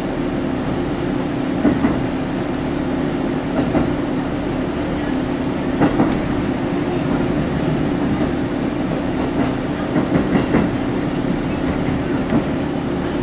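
Running noise heard inside a JR Taketoyo Line train carriage at speed: a steady drone from the running gear, with the wheels clacking over rail joints every few seconds and a quick cluster of clacks about ten seconds in.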